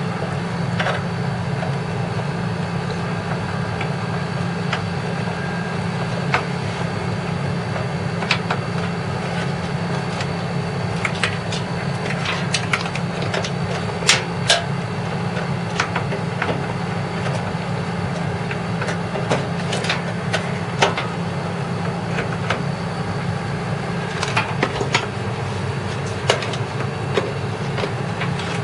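Scattered light clicks and taps of power-supply cable connectors being handled and plugged in inside a desktop PC case, over a steady hum.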